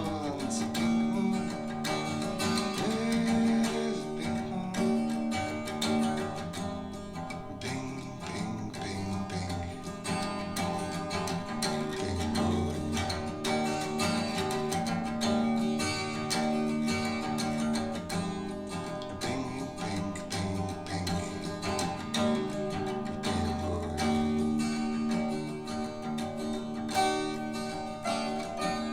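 Acoustic guitar song played back through ASW Genius 110 hi-fi loudspeakers and picked up in the room: steadily strummed and picked guitar.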